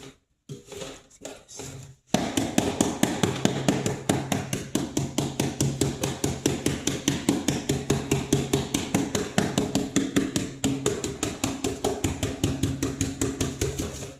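A machine running with a steady hum and a rapid, even knocking, about six knocks a second. It starts suddenly about two seconds in and stops suddenly.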